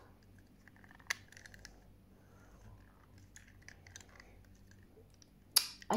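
Faint handling noise: scattered small clicks and rustles of toys and packaging being handled, with a sharp click about a second in and a short, louder rustle near the end.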